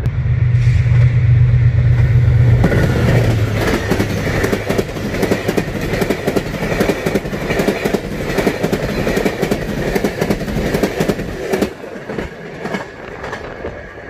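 Diesel-hauled passenger train passing close: the locomotive's low engine hum for the first couple of seconds, then the coaches rolling by with a steady, rapid clatter of wheels over the rail joints, dropping away about two seconds before the end.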